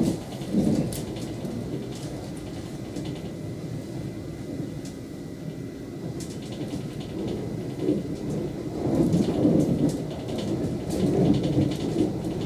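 Norwegian State Railways Class 74 electric multiple unit heard from inside the carriage while running along the track: a steady low rumble of wheels on rail that swells louder at the start and again for a few seconds near the end, with scattered light ticks.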